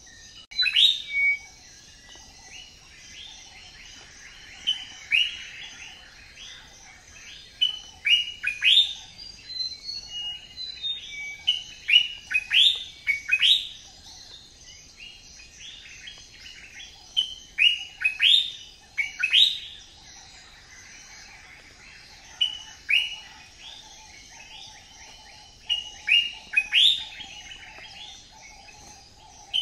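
Birds chirping: short sharp calls that drop in pitch, coming in quick runs of two to four and repeating again and again over a steady faint high hiss.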